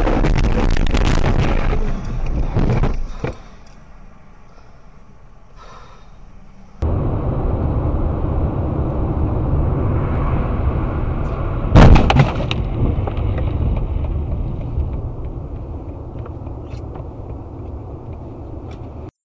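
Dashcam audio of cars on the road: loud noise with sharp cracks for the first couple of seconds, then a quieter lull. After that comes steady road and wind noise heard from inside a car driving on a snowy road, broken about twelve seconds in by one sudden loud bang, the loudest sound here, and fading near the end.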